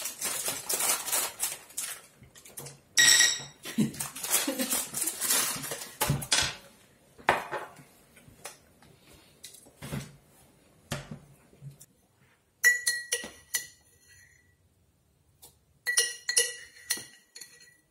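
Crinkling of a plastic chocolate tray and small clicks and clinks as chocolate-coated almonds are taken out and set on china plates, with one ringing clink of china about three seconds in. Near the end, a ceramic canister lid clinks against its jar several times.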